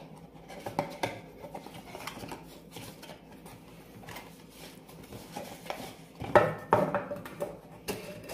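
A small paperboard box being unfolded and handled, with light rustles and clicks, then a round metal tin taken out and handled, giving several sharp knocks and clinks about six seconds in, and its lid being twisted.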